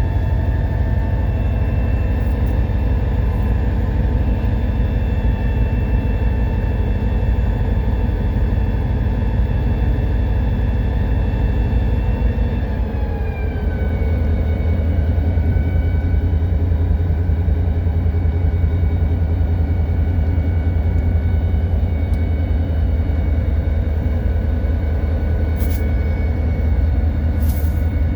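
EMD SD40-2 locomotive's 16-cylinder 645 two-stroke diesel running steadily, heard from inside the cab. About halfway through, its pitch falls smoothly as the engine ramps down to a lower notch, then it runs steadily at the lower speed with a heavier low rumble.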